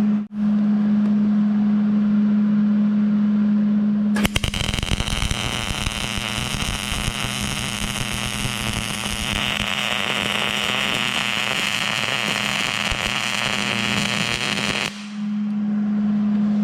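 Steady hum, then about four seconds in a welding arc strikes and crackles and sizzles evenly for about eleven seconds before cutting off, and the hum returns.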